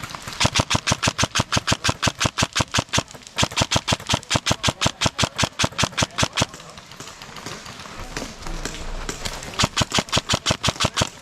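Airsoft gun firing on full auto: three long bursts of rapid, evenly spaced shots, the first two almost back to back and a shorter third one near the end.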